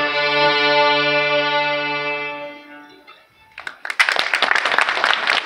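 Children's violin ensemble with a cello holds a final sustained chord that dies away about three seconds in. About a second later the audience starts applauding.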